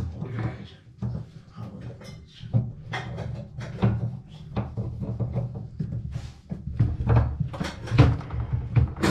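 Irregular knocks and clatters, many small hard impacts in quick, uneven succession, from hands and tools working on a kitchen tap.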